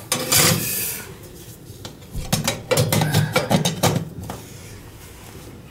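Metal tools and fittings clinking and rattling as they are handled. There is a short scraping burst at the start, then a quick run of clicks and knocks from about two to four seconds in.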